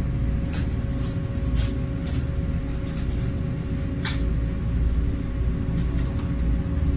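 River cruise boat's engine running with a steady low drone, heard inside the glass-enclosed passenger cabin, with scattered sharp ticks or rattles every second or so.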